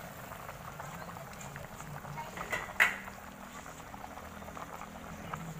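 Fish and tomato stew bubbling at a simmer in an uncovered aluminium pot on a gas burner. A single sharp clink comes a little under three seconds in.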